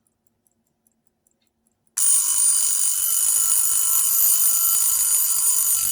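Wind-up mechanical travel alarm clock ticking faintly, then about two seconds in its alarm goes off and rings loudly and continuously.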